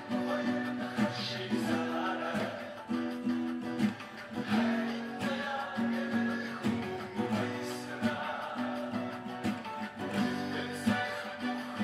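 Steel-string acoustic guitar with a capo, played in a steady rhythm, changing between A minor and E major chords.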